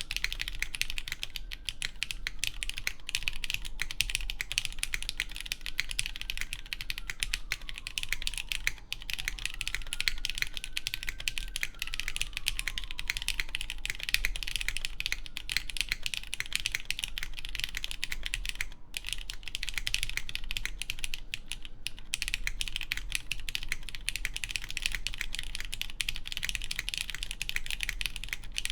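Steady typing on a Keycult Zero mechanical keyboard, built plateless on a 1.6 mm PCB with lubed Cherry MX Black Clear Top (Nixie) linear switches and GMK keycaps. A dense stream of keystrokes runs with a couple of brief pauses.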